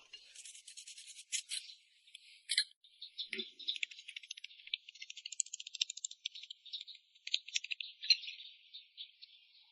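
Rapid, irregular high-pitched scratching and light clicking, with one soft low knock about three and a half seconds in.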